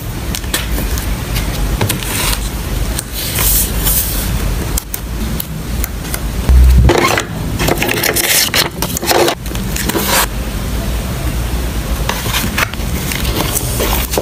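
Close-up handling of cardboard and clear plastic while packing photocards: fingers rubbing, sliding and scraping on the materials, with one loud thump about halfway through.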